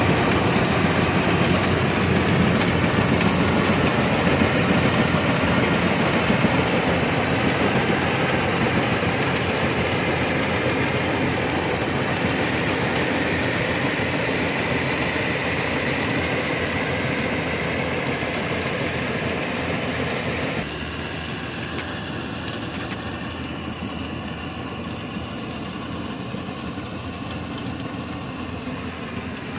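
Yanmar rice combine harvester running through standing rice, its engine and cutting and threshing machinery making a steady, dense mechanical rattle. About two-thirds of the way in the sound drops abruptly and continues quieter, the machine heard from farther off.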